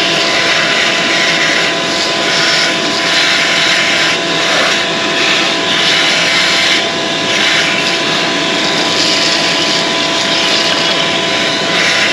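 Shop vacuum running with a steady motor whine as its hose sucks dry leaves and squirrel-nest debris out of a car's engine bay.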